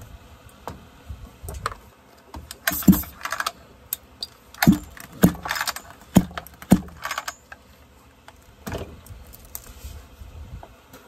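Clinking, rattling and knocking of chainsaw parts and tools being handled on a workbench, with a burst of rattling about three seconds in and then four sharp knocks in quick succession.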